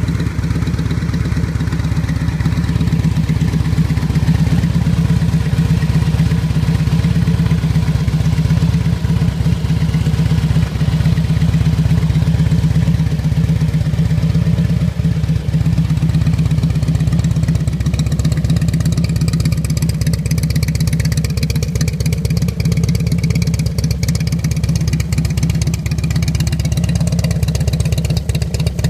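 Harley-Davidson Street Glide V-twin idling steadily with a pulsing beat through Bassani Boom Cans exhaust, loud, with more crackle in the top end over the second half.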